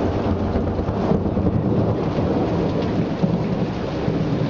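Rain falling with a long, low thunder rumble underneath that stays steady throughout.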